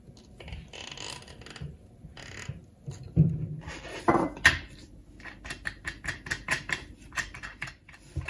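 Workshop handling noise as a PVC-pipe coil former is turned and worked on a wooden table: rustling and scraping, two sharp knocks about three and four and a half seconds in with a brief squeak between them, then a quick run of small clicks.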